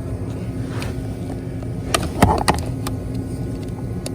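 A few sharp plastic clicks and knocks about two seconds in as a Bluetooth OBD-II scan tool is plugged into the car's diagnostic port under the dash, over a steady low hum.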